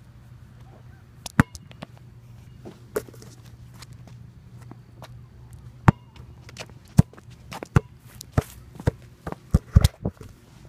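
Scattered sharp knocks and thuds at an outdoor basketball court, irregular and coming closer together near the end, over a steady low hum.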